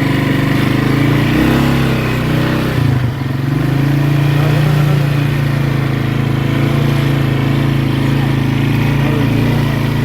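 Polaris ATV engine running steadily under throttle, with a brief dip about three seconds in before it picks up again.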